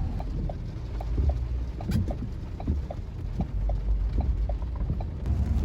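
A car's flasher relay clicking in a steady tick-tock, a pair of clicks a little more than once a second, over the low rumble of the moving car heard from inside the cabin.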